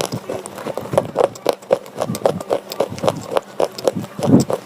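Slate pencil being bitten and chewed: a steady run of crunches, about four a second.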